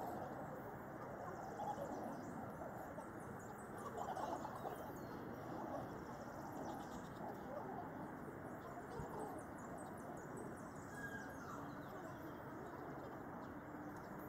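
Faint outdoor background noise with birds calling now and then.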